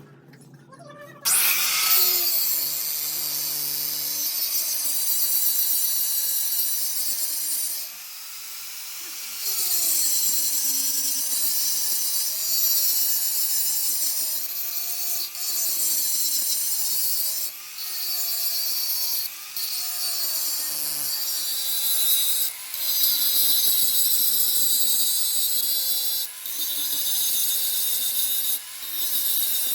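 Power tool running under load with a wavering pitch and a loud high hiss, breaking off briefly every two to three seconds as it works the part.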